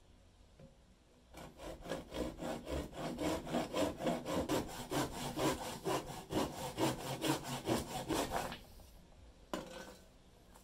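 Handsaw cutting through a small clamped wooden block in steady back-and-forth strokes, about three a second. The strokes start about a second in and stop about two seconds before the end, and one brief knock follows.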